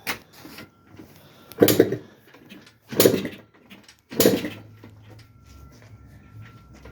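Yamaha Blaster's two-stroke engine being kick-started four times, about 1.3 s apart, each stroke a loud thump as the engine turns over without catching. It comes during the first start attempt after a top-end rebuild.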